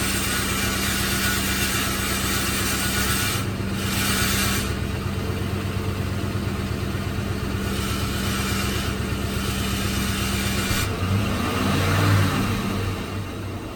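A car running steadily with a rattling noise over the engine hum; about eleven seconds in the pitch briefly rises and falls, the loudest moment.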